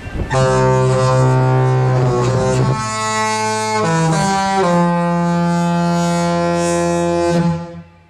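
The Disney Dream cruise ship's musical horn, the "Mickey whistle", playing a short tune in loud chords. There are four notes: a long first note, two short ones, and a long last note that cuts off sharply near the end.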